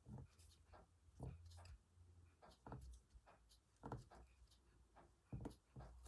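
Faint, irregular small ticks and rustles from hand-embroidery work: fabric and small sewing tools being handled close to the microphone, over a low steady hum.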